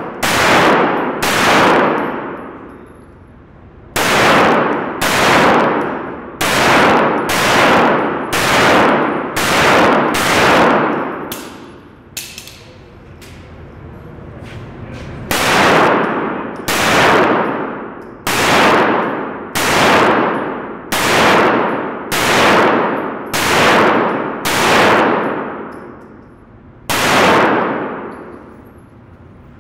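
Handgun shots fired one after another about a second apart, in strings with short pauses between, each shot ringing on in a long echo off the walls of an indoor range.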